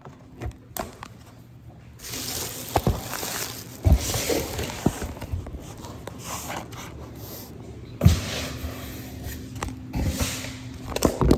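Rustling of packaging being handled, with a few sharp knocks.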